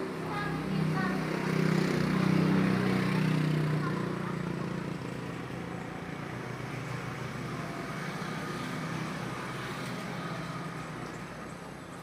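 A low droning rumble from the sky, swelling over the first few seconds and then slowly fading away; an unexplained 'strange sound from the sky' whose source the person recording does not know.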